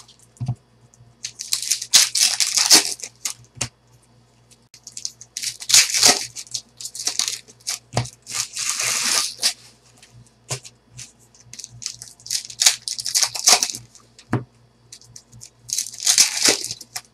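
Foil trading-card pack wrappers crinkling and tearing, with cards being shuffled and flicked through by hand, in several short bursts of rustling with a few sharp clicks between them.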